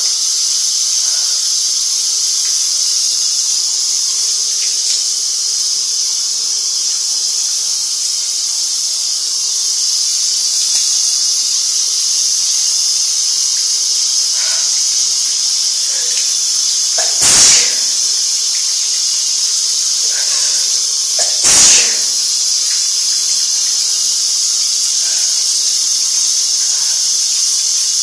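Shower spray running steadily, with two loud, sharp sneezes about four seconds apart in the second half: cold sneezing.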